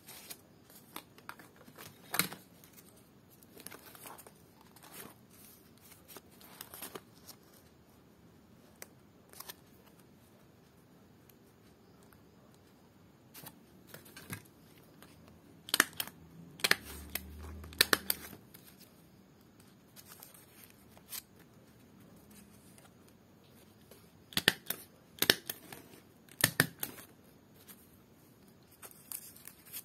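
Hands cutting and handling dry ental palm-leaf strips on a table: scattered sharp clicks and snips. There are louder runs of clicks about halfway through and again a few seconds before the end.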